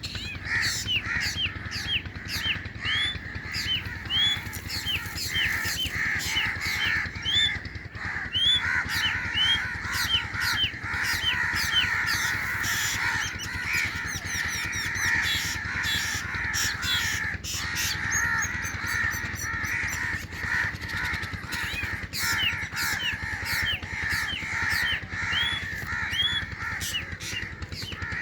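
Drongo chicks calling without pause from the nest: a dense chorus of short calls, with quick upward-curving notes several times a second.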